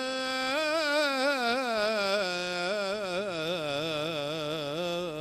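Male voice singing one long melismatic phrase of a Turkish ilahi: a single line full of quick turns and trills. About two seconds in it sinks to a lower note and holds it, shaking, to the end.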